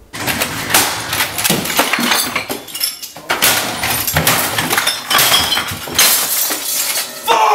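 Repeated crashing and smashing of household objects, with glass breaking and clinking among the dense run of impacts.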